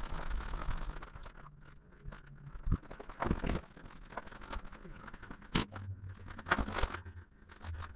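Footsteps and shuffling on a debris-strewn concrete floor with clothing and gear rustling, broken by a few sharp clicks; the sharpest click comes a little over halfway through.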